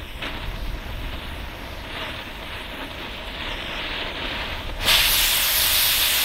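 Oxy-acetylene cutting torch hissing steadily as its flame melts through an aluminium AR-15 lower receiver. About five seconds in, a much louder, higher hiss starts suddenly and runs for over a second.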